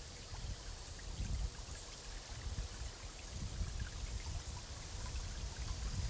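Water trickling and running steadily, over a low, uneven rumble.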